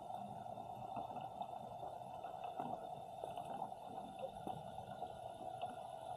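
Muffled underwater ambience picked up through a submerged action camera's body: a steady hum with many faint, scattered clicks and ticks.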